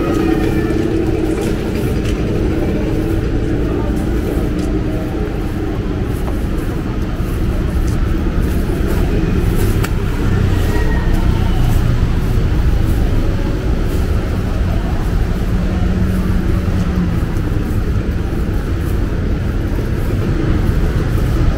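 Street ambience dominated by a steady low rumble of road traffic, with voices faintly in the background.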